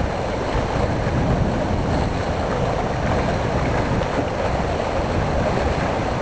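Wind buffeting the microphone over a steady rush of water along a boat under way at sea.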